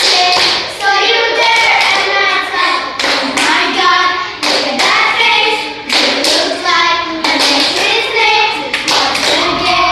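A group of primary-school children singing a song together, keeping the rhythm with sharp hand claps throughout.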